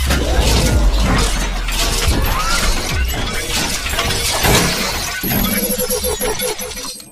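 Animated-intro sound effects: a dense run of crackling, crashing and shattering hits over a deep steady rumble. A high squealing tone joins in about five seconds in.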